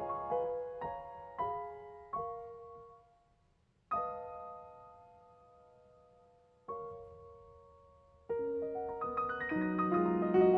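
Solo piano playing slowly. Chords are struck and left to die away, with a near-silent pause about three seconds in. A fuller, busier passage begins about eight seconds in.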